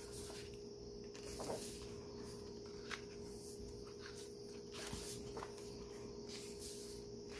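Pages of a hardcover photo book being turned by hand: a few soft, short paper swishes and slides over a faint steady hum.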